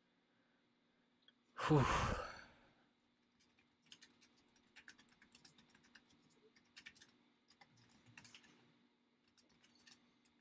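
A loud breathy sigh close to a microphone about two seconds in, falling in pitch. Then faint, scattered clicks of speedcubes being turned as they are scrambled.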